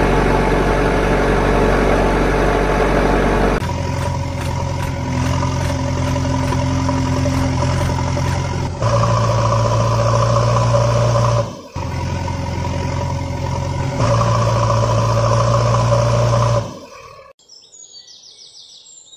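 Truck engine sound running steadily, its pitch and tone jumping abruptly every few seconds where the clips are cut. It stops about 17 seconds in, leaving faint bird chirps.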